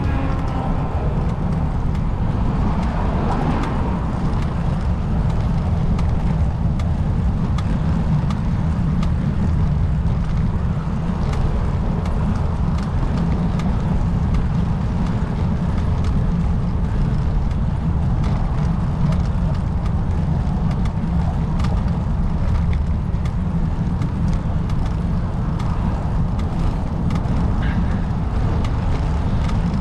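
Steady low rumble of road and engine noise from a car being driven, unchanging throughout.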